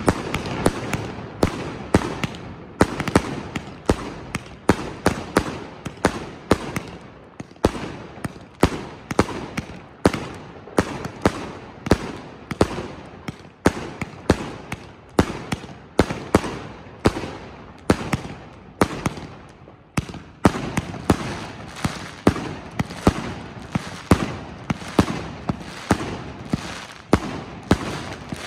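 Enigma CIG5008 firework cake, a 186-shot cake of 20, 30 and 45 mm tubes, firing a steady run of shots at about two a second. Each is a sharp bang with a short tail as the shells launch and burst overhead.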